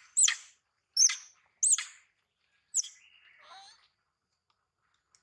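A bird calling: four sharp, high, arching chirps within the first three seconds, followed by a softer, rougher call.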